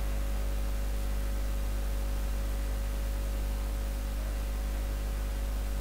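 Steady low electrical hum, like mains hum, with a faint even hiss and no voices.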